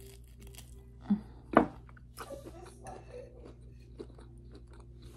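Someone eating close to the microphone: chewing and mouth sounds with scattered soft clicks, and two louder short sounds about a second in.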